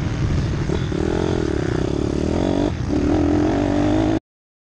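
Motocross minibike engine revving hard under acceleration, its pitch rising and falling. A short break comes a little after halfway, then it runs on at a higher, steadier pitch. Wind rushes over the microphone, and the sound cuts off suddenly about four seconds in.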